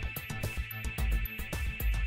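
Background music: an electronic track with a steady, driving beat and heavy bass.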